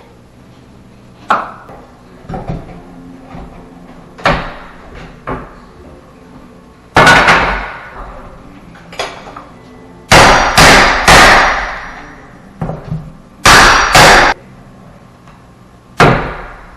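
Irregular hammer blows and knocks on a wooden door jamb being ripped out of its frame, about a dozen in all, the loudest coming as a quick run of three and then a pair.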